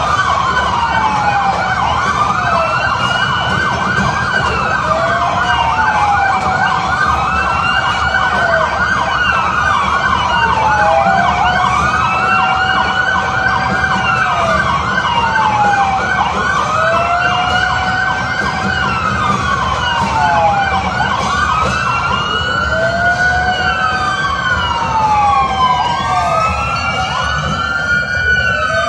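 Several emergency-vehicle sirens wailing at once, their overlapping tones rising and falling every two to three seconds, over a steady low street rumble.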